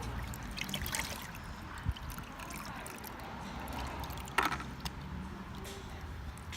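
Water sloshing and dribbling as a dirt bike part is worked by hand in a container of salt water, with a short knock about two seconds in and a louder sharp knock a little past four seconds.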